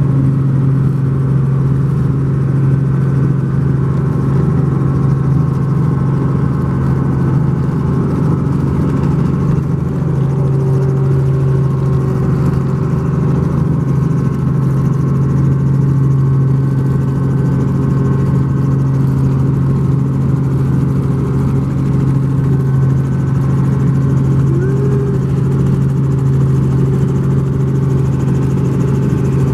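Helicopter engine and rotor running steadily and loudly, heard from aboard, with a strong low hum under it, as the helicopter goes from the pad into flight.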